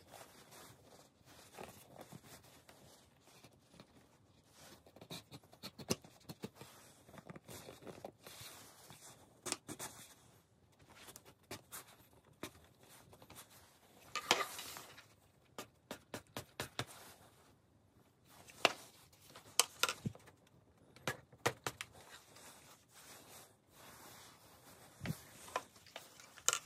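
Handling noise as a brass tube is pushed through the hinge holes of a model plane elevator: faint scrapes, small clicks and rustling, with a few louder scrapes about halfway through and again about three-quarters of the way in.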